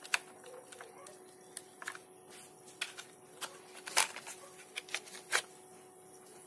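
Scattered light clicks and knocks of a 3D printed plastic airsoft stock being handled as a small LiPo battery and its leads are pulled out of it, the loudest knock about four seconds in.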